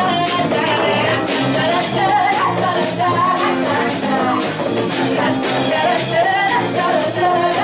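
Live acoustic folk song: a woman singing a wavering melody over a strummed acoustic guitar and a steady beat on a hand-held frame drum.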